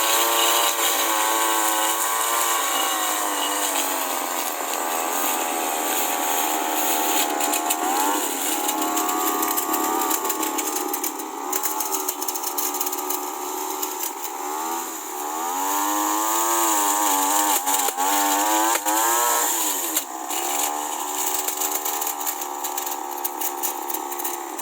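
Petrol push lawn mower engine running while cutting grass, its pitch dipping and recovering several times as it takes load.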